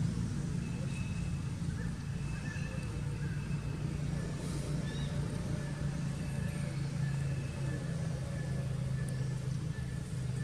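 A steady low engine hum, like a motor vehicle idling, with faint thin high tones coming and going over it.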